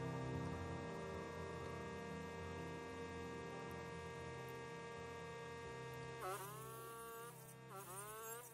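Sustained background music tones fading, then about six seconds in a circular saw motor starts with a whine that dips and rises back several times.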